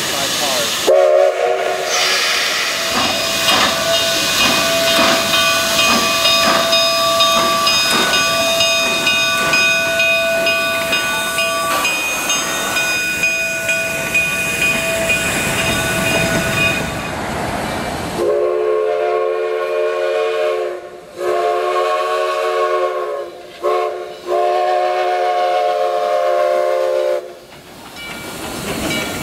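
Narrow-gauge steam locomotive whistles over hissing steam. The first is a long, high, many-toned whistle held for most of the first half. The second is a lower whistle blown long, long, short, long, the grade-crossing signal.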